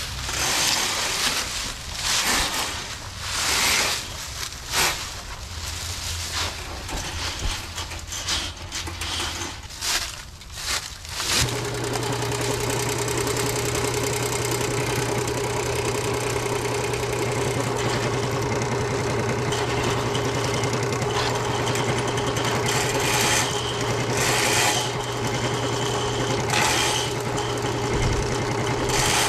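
Ridgid K-60 sectional drain-cleaning machine: irregular clattering and rustling as its cable sections are handled, then about eleven seconds in its electric motor starts and runs with a steady hum, spinning the cable fed into the drain cleanout to clear a kitchen branch-line clog.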